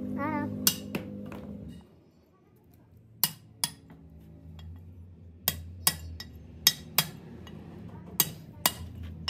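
Hand hammer striking a cold chisel set against the steel of an old drum brake shoe: sharp metallic clinks with a short ring, about ten blows, mostly in pairs, as the shoe is chiselled clean for rebuilding.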